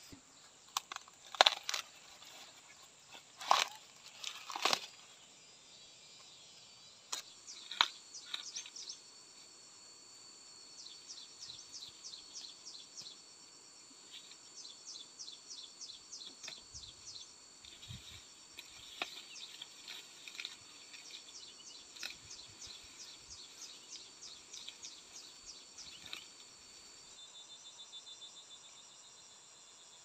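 A few loud rips and rustles of corn husk being pulled back by hand in the first seconds, then insects chirping in fast, regular high-pitched pulses over a steady high insect drone, the pulsing stopping near the end.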